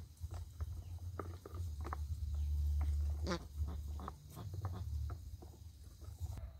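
Animal calls: a string of short cries, the loudest about three seconds in, over a steady low rumble.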